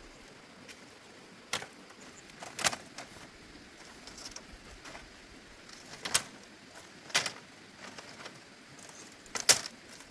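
A handful of sharp, short clicks or knocks at irregular intervals, about five in all, the loudest near the end, over a faint steady background.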